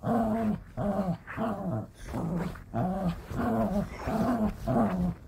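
Dog growling in play while tugging on a rope toy: a run of short growls, about two a second.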